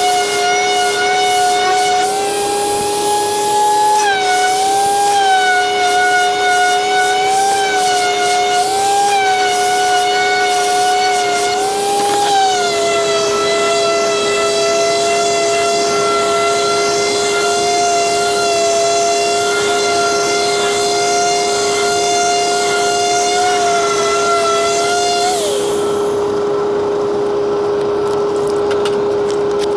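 Random orbital sander running under load, its whine wavering in pitch as it is worked over the wood, then switched off and winding down about 25 seconds in. A steady hum continues throughout.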